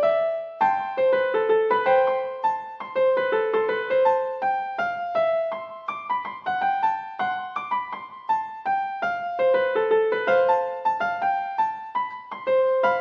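Background music: a light electric-piano melody of short, separate notes.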